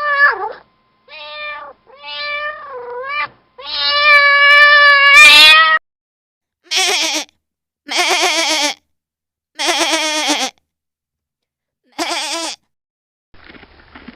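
Animal calls: several drawn-out, meow-like cries, the longest about two seconds and rising at its end, then after a pause four shorter, lower bleats with a quavering pitch.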